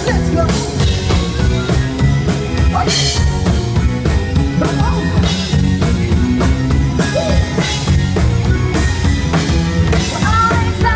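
Live rock band playing: electric guitar, bass guitar and drum kit, loud, with a steady drum beat.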